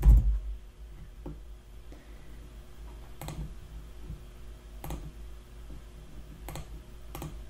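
A handful of isolated computer clicks, about five, spaced a second or two apart, over a faint low hum.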